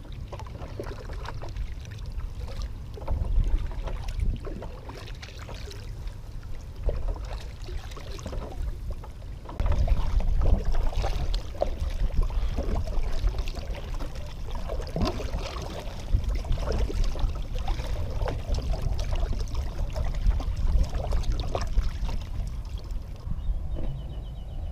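Kayak paddling: irregular paddle splashes and water trickling off the blade, over a steady low rumble that gets louder about ten seconds in.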